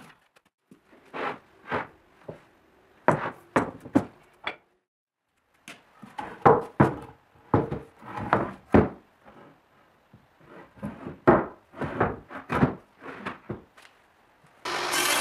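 Wooden boards being handled and set down on a workbench: a string of irregular knocks and scrapes of wood on wood. Near the end a power tool's motor starts and runs steadily.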